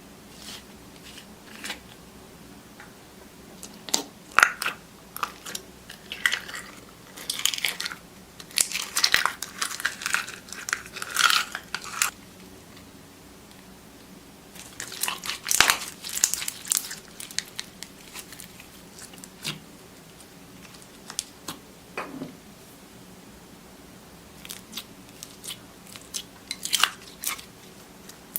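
Slime being pressed and squeezed by hand, giving clusters of crunchy crackles and pops with quiet gaps between them.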